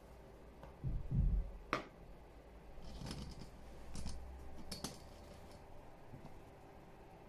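A low thump about a second in, then a few scattered light clicks, over quiet room tone.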